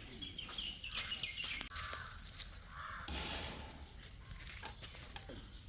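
Crows cawing outdoors, with several short calls in the first half, and a brief burst of hiss-like noise about three seconds in.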